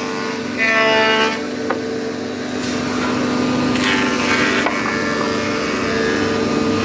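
Woodworking planing/moulding machine running with a steady hum as teak boards feed through it, with music playing over it.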